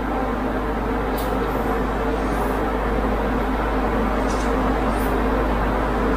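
Mr Hobby airbrush spraying solvent-based candy green paint: a few short hisses about a second in and again around four to five seconds, over a steady mechanical hum.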